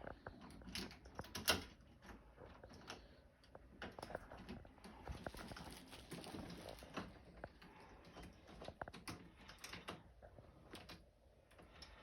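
Faint, irregular clicks and knocks of door-lock parts being handled and fitted into a door, with a sharper knock about one and a half seconds in.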